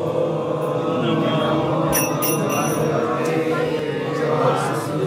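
A man chanting devotional prayers in a drawn-out, melodic voice into a microphone.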